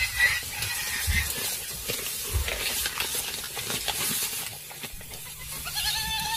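Spotted hyena feeding on a freshly caught warthog: wet tearing and rustling noises with scattered sharp clicks and low thuds.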